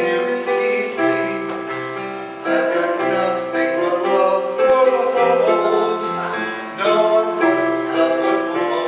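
Music: voices singing long held notes over piano accompaniment, the notes changing about every second.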